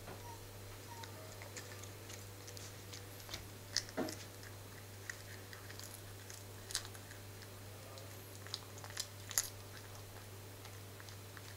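Bengal cat chewing and biting bread: irregular small crunches and wet mouth clicks, a few sharper bites about four, seven and nine seconds in, over a steady low hum.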